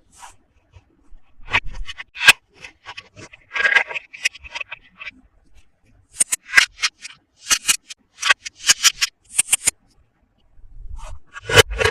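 Hands handling toy packaging: scattered sharp clicks and scrapes, then quick crinkly bursts of plastic for several seconds, and a dull knock near the end.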